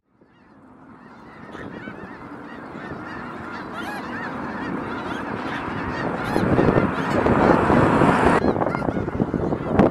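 A large flock of snow geese calling, a dense chorus of many overlapping honks. It swells from near silence at the start to its loudest over the last few seconds.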